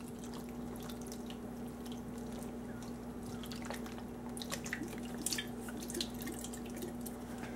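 V8 vegetable juice poured from a 12-ounce can over beef and vegetables in a slow cooker: a trickling pour, turning to drips and a few light ticks near the end as the can empties.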